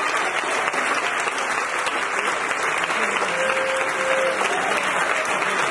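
Audience applauding steadily, a dense unbroken clapping with a few voices calling out among it.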